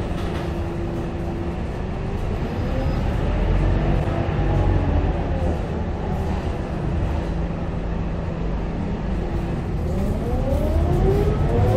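Scania K230UB Euro 4 city bus heard from inside the saloon: a steady low drivetrain rumble with a whine that rises in pitch as the bus speeds up, falls back about five seconds in, and rises again near the end.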